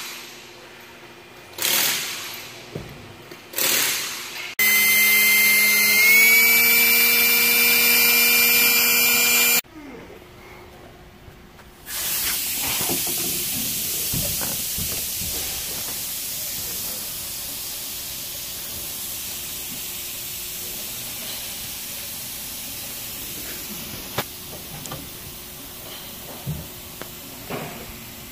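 Cordless drill: a few short bursts as the bit is tightened in the keyless chuck, then the motor runs unloaded for about five seconds with a steady whine that steps up once in pitch. After a pause comes a long, even hiss that slowly fades, with a few clicks near the end.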